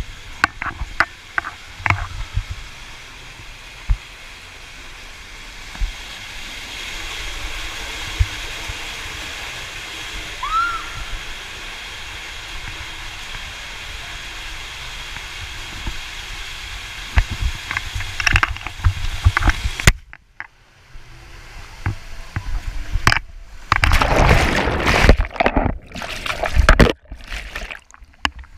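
Ride down an enclosed plastic water slide: a few knocks and bumps at first, then a steady rush of water and sliding along the tube, with louder irregular splashing in the last few seconds as the rider nears the pool.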